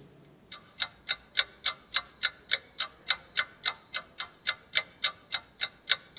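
Clock-ticking sound effect, fast and even at about three and a half ticks a second, starting about half a second in: a timer marking the minutes given to work on the exercise.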